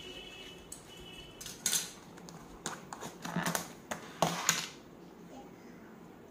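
Takeaway food containers being handled and opened: short clatters and rustles of plastic, in three bursts a second or so apart.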